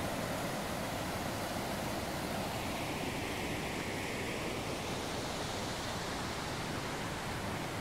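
Steady rushing of a stream pouring over rock cascades.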